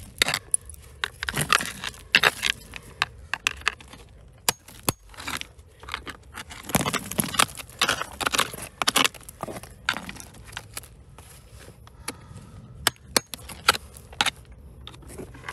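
Hand digging in rocky ground: stones and gravel scraping and clinking as the earth is worked, in an uneven string of sharp knocks and rasping scrapes.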